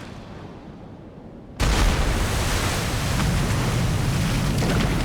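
Cartoon sound effect of a bomb exploding. A low rumble is followed about a second and a half in by a sudden loud blast, which rumbles on for some three seconds and then stops abruptly.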